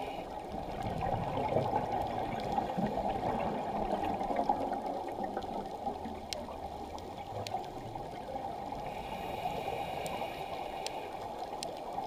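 Scuba diver's exhaled bubbles gurgling and rushing past an underwater camera, louder through the first half. A faint thin steady tone comes in about three quarters of the way through, with a few sharp clicks.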